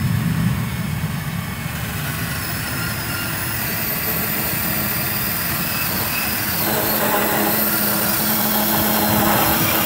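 DeWalt DCS371 18V cordless band saw running steadily, its blade cutting through a 60 mm square steel tube; the cutting sound fills out and grows a little louder about seven seconds in.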